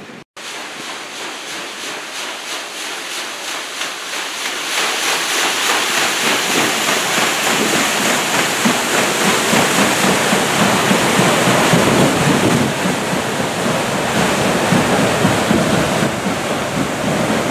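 Sea water churned by the paddle steamer Waverley's paddle wheels as she pulls away, a rushing wash that grows louder over the first several seconds and then stays loud.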